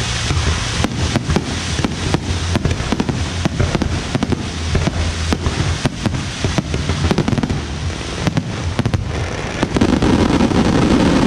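Aerial fireworks going off in rapid succession: a dense run of sharp bangs and crackles from bursting shells. Near the end it thickens into a louder, heavier stretch of bursts.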